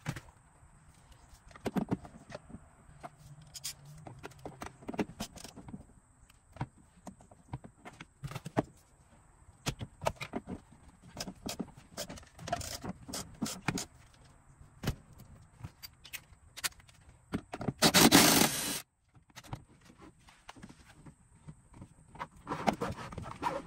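Scattered clinks, knocks and scrapes of tools and parts being handled during hands-on work on a car. About 18 seconds in there is a loud burst of noise lasting about a second, and a rougher stretch of handling noise near the end.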